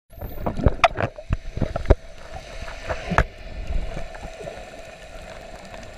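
Underwater sound from inside a camera housing: a diver's exhaled bubbles burst out in a quick run of irregular pops and knocks during the first two seconds, with one more about three seconds in. Under them a steady low hum and a water hiss go on.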